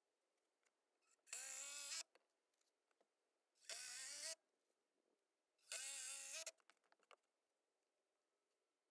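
Cordless driver driving screws into wooden deck boards: three short runs of the motor, each under a second, its whine rising slightly in pitch.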